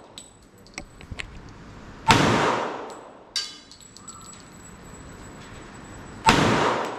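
Two pistol shots from a .45-calibre handgun, about four seconds apart. Each is a sharp crack followed by a long echoing decay, with small clicks in between.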